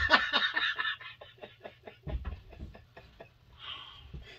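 A man's hearty laughter: loud, quick pulses at first that thin out and fade over the first couple of seconds, with a few dull thumps about two seconds in and soft breathy laughs near the end.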